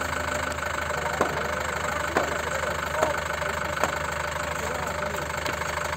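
Engine of a Tata utility vehicle idling steadily, with four sharp knocks roughly a second apart.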